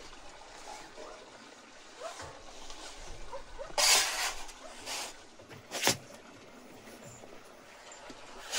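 Wooden bread peel scraping across the stone floor of a wood-fired oven as it is slid under a baked loaf: a loud scrape about four seconds in, a shorter one a second later, then a sharp knock of wood on stone.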